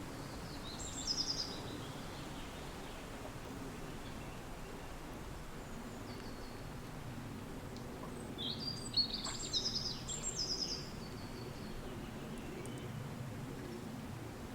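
Steady wind with a songbird singing: a short phrase of quick, high repeated notes about a second in, and a longer run of phrases a little past the middle.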